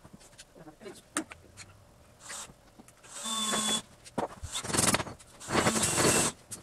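A handheld power tool's motor running in short bursts, three or four of them, the two loudest near the end.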